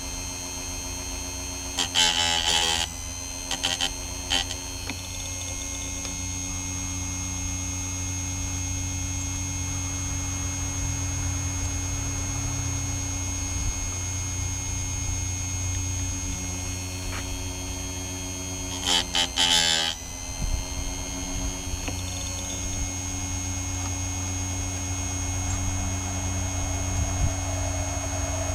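Chicago Electric electric chainsaw sharpener's motor running steadily with a whine and hum, its grinding wheel brought down onto a chain tooth for a brief, louder grind about two seconds in, a few lighter touches just after, and another grind about two-thirds of the way through.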